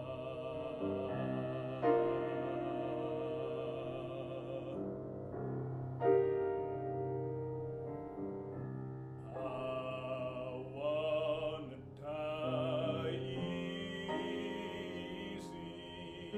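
A classical baritone sings with wide vibrato over piano accompaniment. Partway through, the voice drops out for a few seconds while the piano plays on alone, and then the singing returns.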